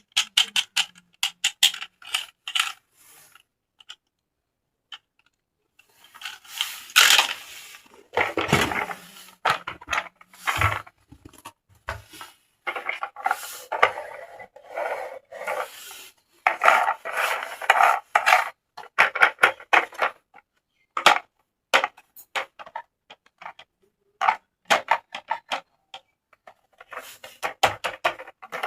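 Hard plastic toy pieces being handled: quick clicks and clatter with rubbing, in bursts, after a few seconds' pause near the start.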